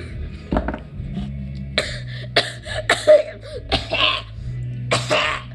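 A woman coughing hard, a string of about five harsh coughs, her throat irritated by a spicy teriyaki stick.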